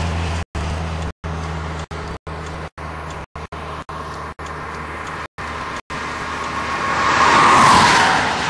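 A steady low engine hum, broken by many brief dropouts in the audio. Near the end a vehicle passes by on the road, swelling up and then falling away in pitch.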